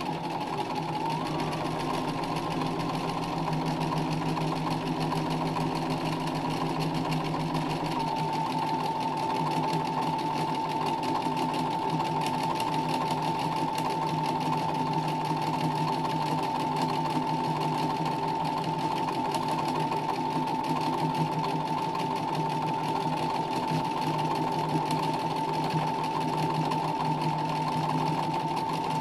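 Sewing machine stitching continuously at a steady speed in free-motion embroidery, a steady motor hum over rapid, even needle strokes. The pitch wavers briefly in the first seconds, then holds steady.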